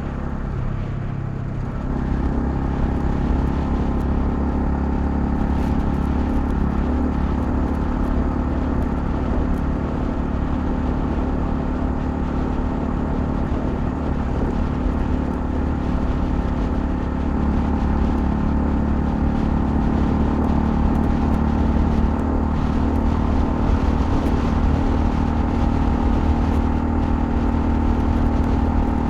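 Honda CL250 motorcycle engine running under way at a steady pace; the engine note steps up and gets louder about two seconds in.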